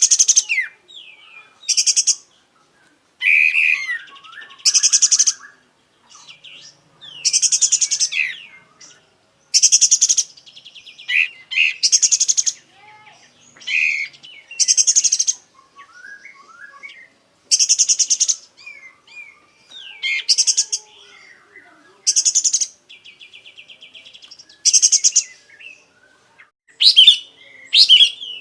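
Kapas tembak bulbul singing hard, running through its varied song. It gives short, loud, rapid rattling phrases about every two seconds, with softer chirps and whistled glides between them.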